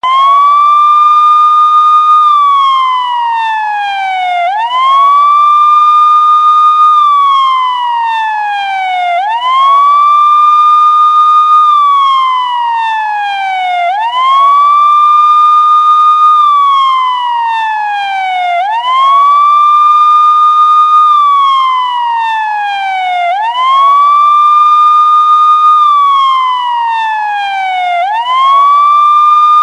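Police siren sound effect in a slow wail: the tone rises quickly, holds high for about two seconds, then falls slowly before rising again, repeating about every four and a half seconds.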